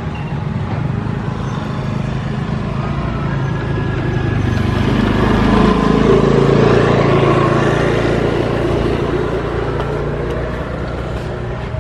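A motor vehicle's engine hum swells to its loudest about halfway through and fades again as the vehicle passes.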